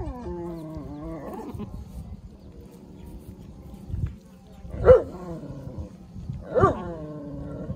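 Goats bleating, a doe with her newborn kids: one long wavering bleat at the start, then a short loud bleat about five seconds in and another near the end.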